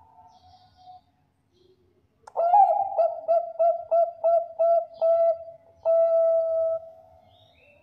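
Zebra dove (Thai-bred 'bangkok' perkutut) cooing: a quick run of about eight short coos, ending in one longer drawn-out note.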